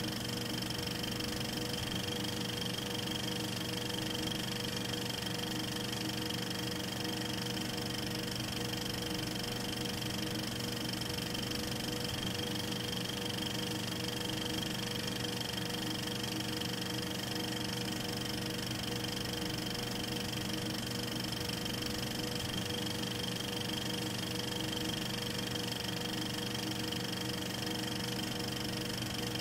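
8mm film projector running: a steady mechanical whir and rattle with a constant hum, unchanging throughout.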